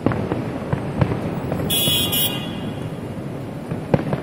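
Distant fireworks booming over steady street traffic noise, with three sharp bangs: one right at the start, one about a second in, and one near the end. A brief high-pitched sound, like a short horn toot, comes about two seconds in.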